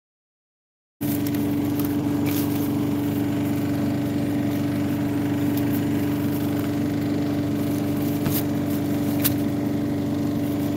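Petrol lawn mower engine running at a steady speed. The audio drops out for the first second, and the engine sound comes back without a change in pitch.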